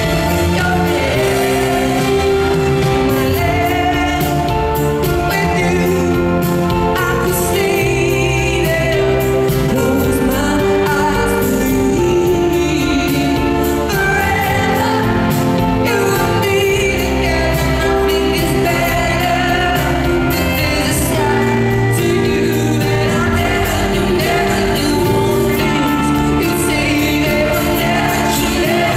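Live pop ballad: a woman's lead vocal, with held notes, over a band's backing, amplified through an arena sound system.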